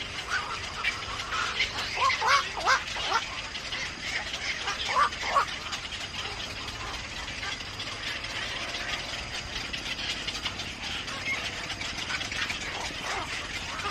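Birds calling at a nest: a quick run of short chirps and squawks about two seconds in, a few more around five seconds, and fainter calls near the end, over a steady outdoor hiss.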